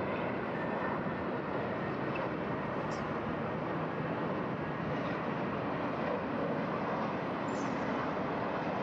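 Steady, unchanging roar of airport traffic noise, jet engines and vehicles blended together, with no single aircraft rising or fading.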